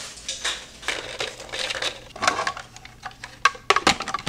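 Saltine crackers crackling and breaking as they are crumbled and dropped into a plastic food processor bowl, then sharp plastic clicks near the end as the lid is handled and fitted onto the bowl. The motor is not running.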